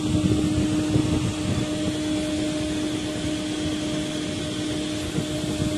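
A steady mechanical drone with a constant humming tone, from a machine running nearby.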